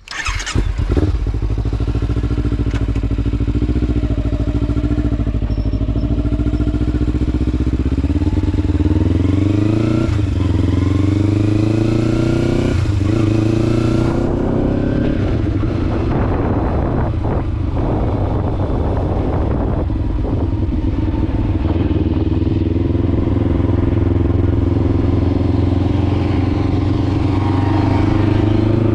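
2013 Kawasaki Ninja 300's parallel-twin engine starting up and running, then accelerating through the gears, its pitch climbing and dropping sharply at each shift, twice in quick succession about ten and thirteen seconds in. Later it runs more steadily and climbs again near the end.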